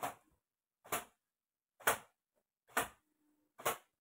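A towel slapping down onto long wet hair, swung over the head again and again in a steady rhythm: five sharp whacks a little under a second apart.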